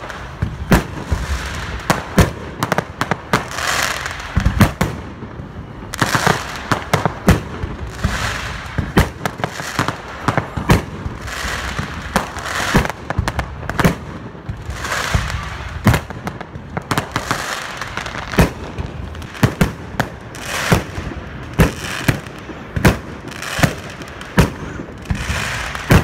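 Fireworks display: aerial shells bursting in a dense barrage, sharp bangs coming in quick succession, often more than one a second, with noisy crackle and hiss between them.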